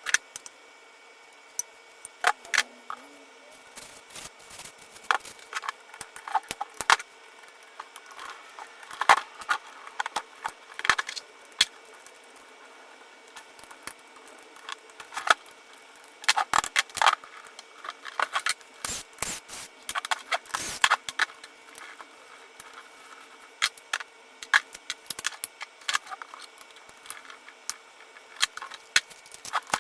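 Hand tools and small metal parts clicking, clinking and scraping at irregular intervals as an RC car is being taken apart.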